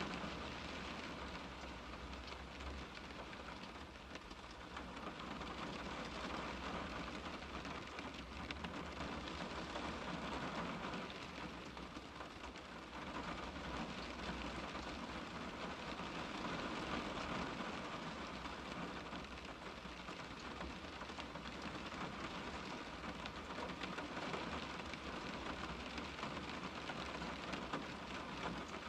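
Rain falling on a car's window glass, heard from inside the car: a steady patter of drops that swells and eases slightly.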